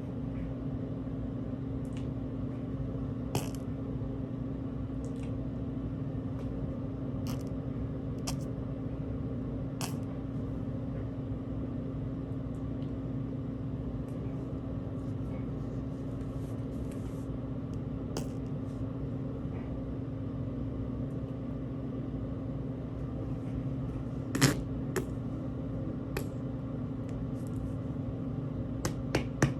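Steady low machine hum with scattered small clicks and taps; the sharpest click comes about 24 seconds in, and a few more come near the end.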